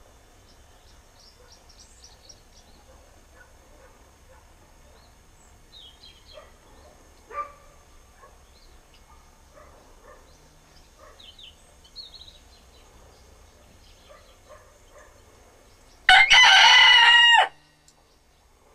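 A rooster crowing once, loudly, for about a second and a half near the end. Before that there are only faint scattered chirps and a short cluck about seven seconds in.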